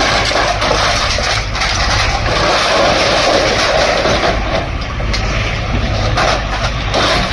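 Heavy demolition machine's diesel engine running loudly, with scattered knocks and clatter through the noise.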